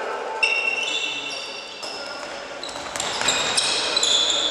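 Athletic shoes squeaking again and again on a wooden sports-hall floor during handball play, with a handball bouncing.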